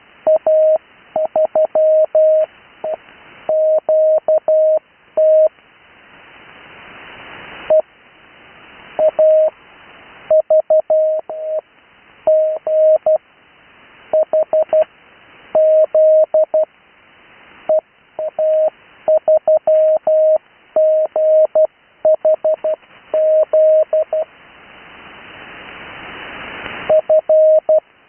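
Morse code callsigns sent in CW: a single steady tone keyed on and off in dots and dashes, in groups separated by short pauses. A hiss fills the gaps and swells in the longer pauses between callsigns.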